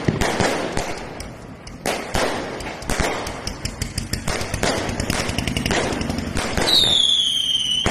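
Fireworks and firecrackers going off in a rapid, irregular string of bangs and crackles. Near the end there is a high whistle that slides slightly down in pitch.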